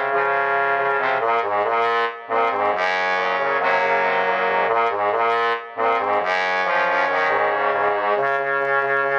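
Trombone quartet, three tenor trombones and a bass trombone, playing a loud rock riff arrangement in close harmony. The chords change in a quick, punchy rhythm, with two brief breaks, about two seconds and five and a half seconds in.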